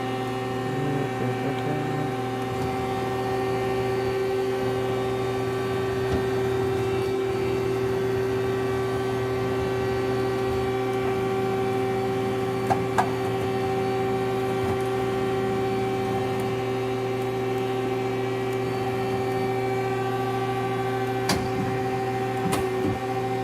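Mazak QT250 CNC lathe powered on and standing idle: a steady hum with several steady tones, with a few light clicks about halfway through and near the end.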